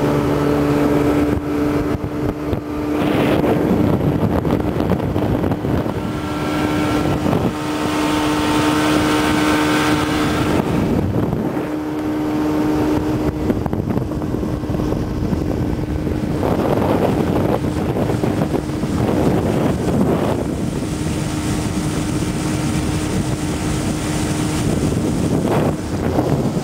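1960 Evinrude 40 hp Lark II two-stroke outboard motor running at a steady cruising speed with a steady drone, with gusts of wind buffeting the microphone.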